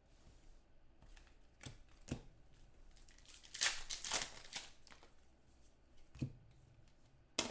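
Trading cards being handled on a table: a few light clicks, a burst of sliding and rustling about three and a half seconds in, and a knock near the end.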